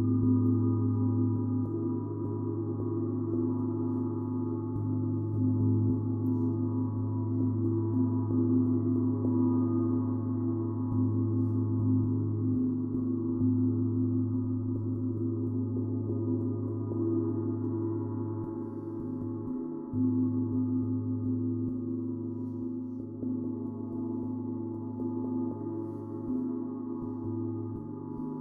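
Sound-journey instruments ringing: a deep, sustained low tone layered with higher ringing overtones, swelling and easing every few seconds without any distinct strikes.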